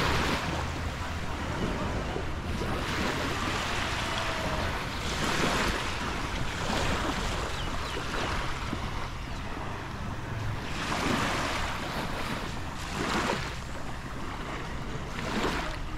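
Sea waves washing up the beach in repeated surges a couple of seconds apart, with wind rumbling on the microphone.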